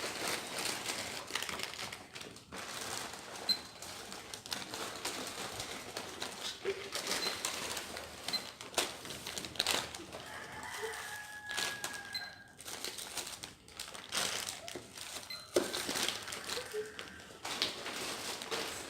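Plastic packaging rustling and crinkling as a batch of packaged squishy toys is handled and counted, with irregular small clicks and knocks throughout.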